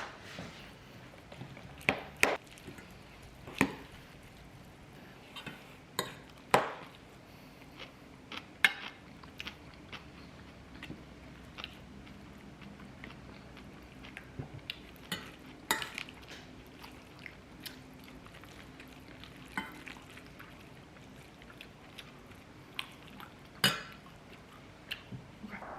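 Irregular light clinks and clicks of utensils and dishes being handled, with one louder clink near the end, over a faint steady hum.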